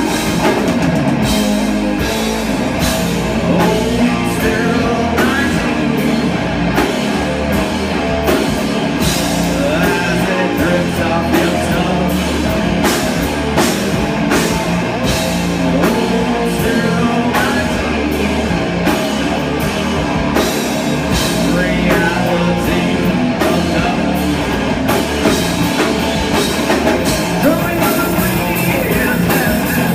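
Rock band playing live: electric guitar, bass guitar and drum kit, loud and steady.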